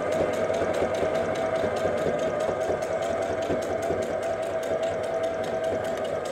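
Electric domestic sewing machine stitching forward through thick multicam pouch fabric: a steady motor hum with fast, even needle ticks. It stops abruptly at the end, ready to reverse-stitch and lock the seam.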